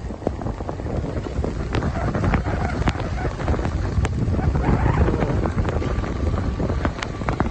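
Wind buffeting the microphone of someone skiing downhill, with a scatter of short scrapes and crunches from skis cutting through fresh snow.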